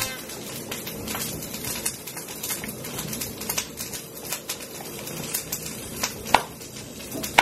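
Chef's knife chopping garlic on a plastic cutting board: a run of quick, uneven taps as the blade strikes the board.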